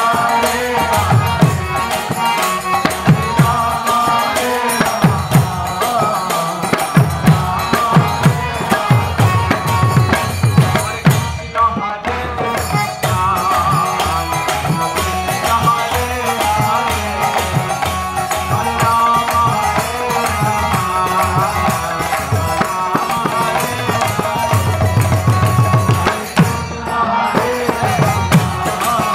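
Kirtan music: a hand drum keeps a steady beat under jingling hand cymbals and a held melody line. The cymbals drop out briefly about twelve seconds in and again near the end.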